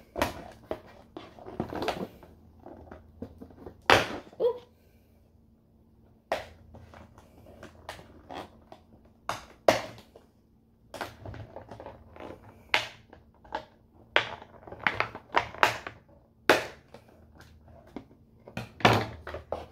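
Scissors snipping the plastic ties that hold an action figure in its cardboard box: irregular sharp snips and clicks, with the box and packaging rustling and knocking between cuts.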